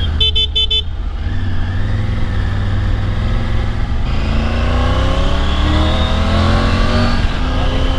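Triumph Tiger 900 Rally Pro's three-cylinder engine running on the move over a steady low rumble, its pitch climbing over the second half as the bike accelerates. A brief high beeping horn sounds in the first second.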